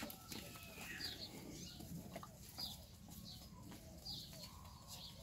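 Farmyard bird calls: a short high chirp repeating about every second, with fainter low clucking calls.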